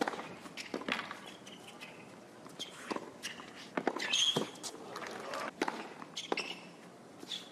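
A tennis rally on a hard court: sharp racket-on-ball hits and ball bounces at irregular intervals, mixed with short high squeaks.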